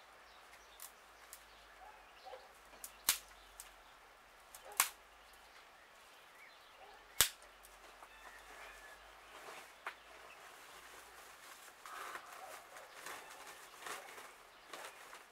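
Three loud, sharp cracks about two seconds apart, with fainter ticks and faint chirp-like sounds around them.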